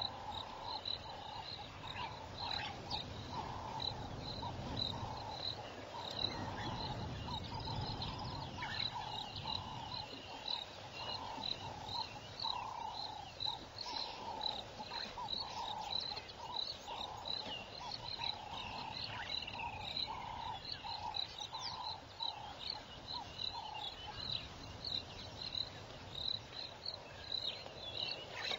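Bush chorus of insects and frogs: short high chirps repeating steadily a couple of times a second, with a lower call repeated about twice a second that stops a few seconds before the end.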